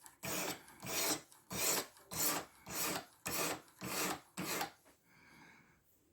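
A 600-grit diamond sharpening stone stroked across the 14C28N steel edge of a knife clamped in a guided sharpener. It makes about nine rasping passes at about two a second, then stops near the end.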